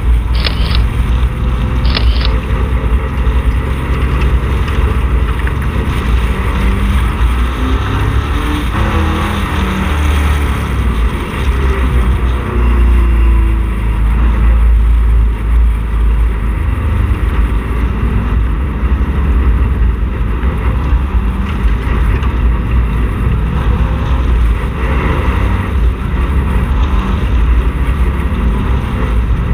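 Camaro street stock race car's V8 engine running steadily at a moderate caution pace, heard from inside the car. Two sharp clicks sound near the start.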